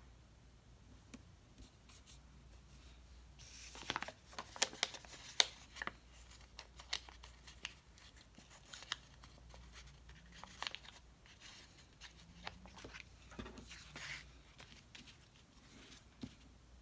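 Paper sticker sheets being handled and stickers peeled off their backing: faint rustling and crinkling of paper with scattered sharp ticks, busiest from about four to six seconds in.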